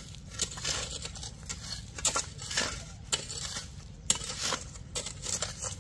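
An uneven run of short scraping, crunching strokes, about two a second, as of something being worked by hand.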